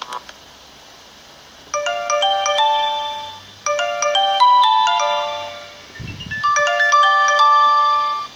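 Built-in ringtone of an Alcatel Big Easy (A382g) mobile phone playing from its speaker: a fast melody of bright, mallet-like electronic notes that starts about two seconds in and repeats its phrase. A click at the very start and a short low thump about six seconds in.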